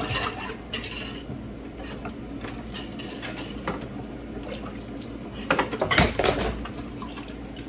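Metal cookware and utensils clinking and knocking as pots and pans are handled on a stovetop. Scattered light knocks, then a louder cluster of clatter about five and a half to six seconds in.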